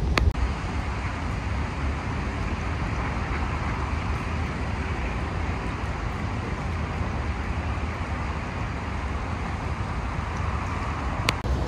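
Steady distant road traffic noise with a low rumble, broken by a sharp click near the start and another near the end.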